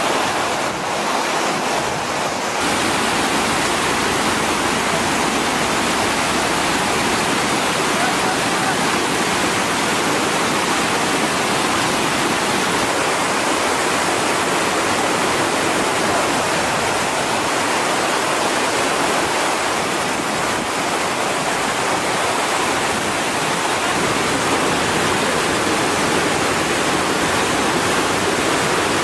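Steady rush of flowing water: an even, unbroken hiss.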